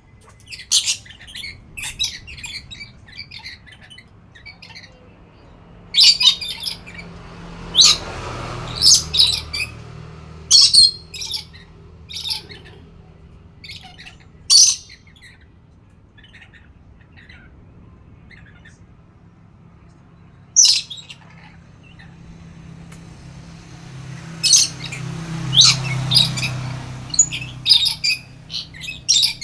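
Nuri (lory parrot) squawking in sharp, short bursts that come in clusters with a quieter pause between them. A low hum swells up twice underneath.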